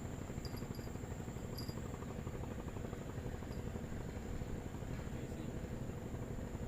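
Steady, high-pitched insect drone, with a few short high chirps in the first few seconds, over a constant low rumbling noise.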